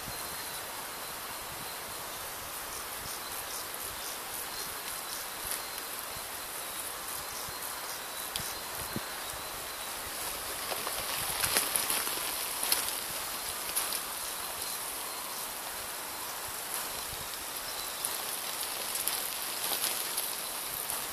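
Outdoor rural ambience: a steady high hiss with scattered small crackles and clicks, busiest around the middle.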